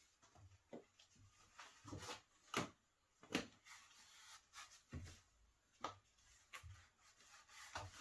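Scattered light knocks, taps and rubbing as a horn, sinew and maple Turkish flight bow is handled and strapped onto its bending form; the two sharpest knocks come about two and a half and three and a half seconds in.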